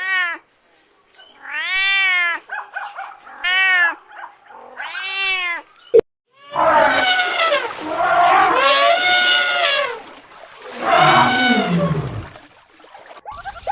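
A cat meowing: four short meows that rise and fall in pitch, then after a sharp click about six seconds in, two longer, louder drawn-out yowls.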